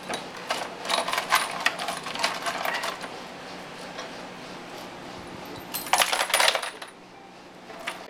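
Small steel engine bolts and parts clinking together as they are handled: a run of light metallic clicks, then a short, louder clatter about six seconds in.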